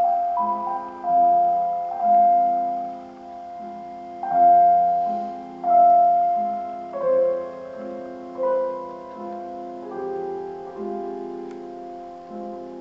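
Slow, calm piano music: held chords with single melody notes struck every second or so, each ringing out and fading.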